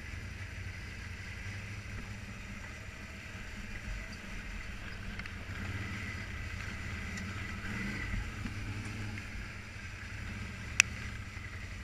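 Can-Am ATV engine running steadily at low speed as the quad rolls down a rocky gravel trail, with one sharp click near the end.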